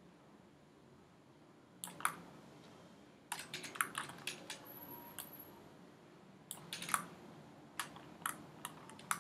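Clicking and tapping of a computer keyboard and mouse in short, irregular clusters. There are a couple of clicks about two seconds in, a quick run of them between about three and five seconds, and more scattered clicks toward the end.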